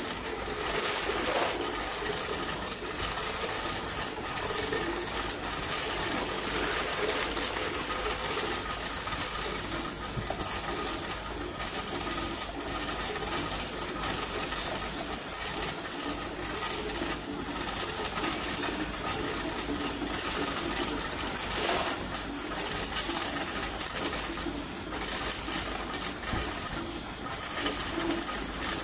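A tube ice machine running, with a steady hum, while freshly cut ice tubes clatter down its stainless steel discharge chute into a plastic basin in a dense run of small clicks.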